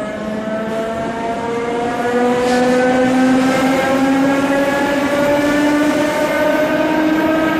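Electric multiple unit's traction motors whining, with several tones climbing slowly and steadily in pitch as the train accelerates, over the rumble of the carriage.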